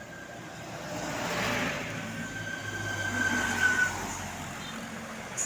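A road vehicle passing close by, its noise swelling about a second in, with a steady high tone sounding for about two seconds in the middle.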